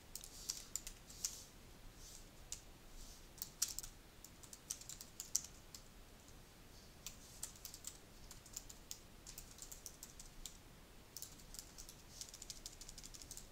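Typing on a computer keyboard: quick, light key clicks in irregular runs, broken by a couple of short pauses.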